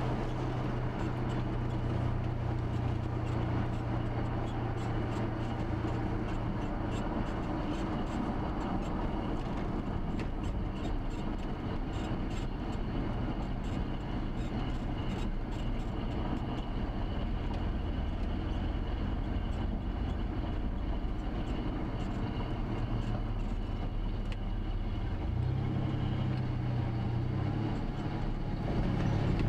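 Steady engine hum and road noise of a moving car heard from inside it. The engine note rises briefly near the end.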